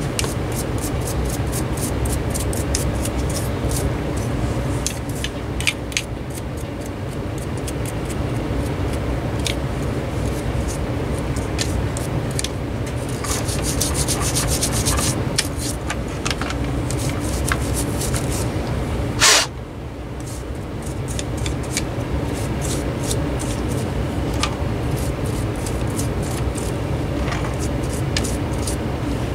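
Rubbing and scrubbing by hand to clear dust off an electric fan part, with a steady scratchy sound full of small ticks. One sharp knock comes about nineteen seconds in.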